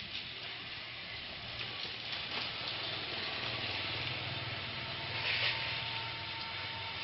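A dog's claws scratching and scraping into soil as it digs hard, a continuous gritty rasp with small clicks of dirt and debris, briefly louder about five seconds in. A low steady hum runs underneath.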